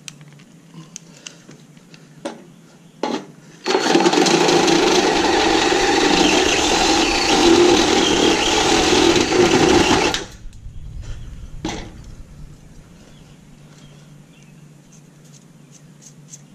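Cordless drill running steadily under load as it bores a hole through sheet metal for about six seconds, starting and stopping abruptly. Short clicks come before it, and a few clicks and a knock follow after it stops.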